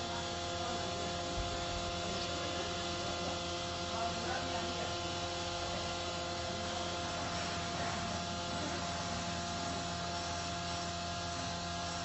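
Steady electrical-sounding hum with several constant tones over a faint hiss, unchanging throughout.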